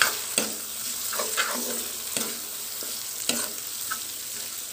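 Sliced onions with ginger-garlic paste and turmeric frying in oil in a kadai, sizzling steadily, while a metal spatula stirs and scrapes the pan in short strokes every second or so.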